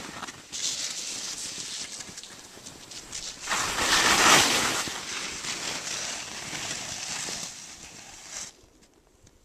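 Skis hissing and swishing through soft powder snow, growing to a loud rush about halfway through during a turn, then easing off and falling almost quiet near the end as the skiers slow.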